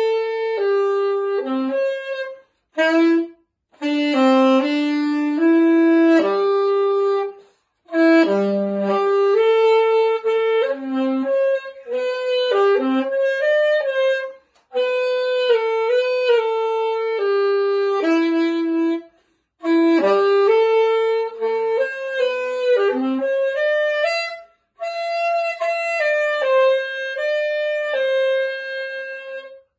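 Alto saxophone played solo: a melody of separate notes in phrases, with short breaks between phrases, ending on a long held note just before the close.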